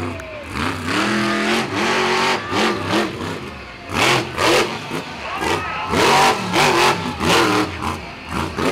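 Monster truck's supercharged V8 engine revving hard in repeated surges, its pitch climbing and falling as the throttle opens and closes.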